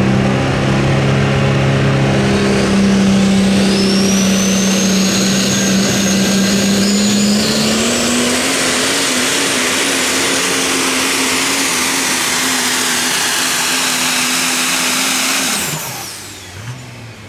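Super modified four-wheel-drive pulling truck's engine running hard and loud, with a high whine that climbs over several seconds a few seconds in and then holds. The engine note steps up about halfway through, and near the end the engine cuts off abruptly and the whine falls away.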